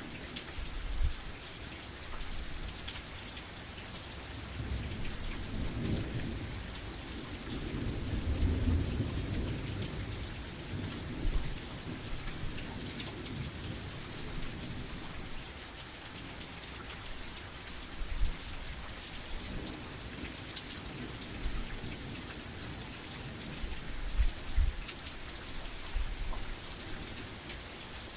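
Steady rain with thunder. A long low rumble swells and fades about a third of the way in, and a few short low thuds stand out above the rain.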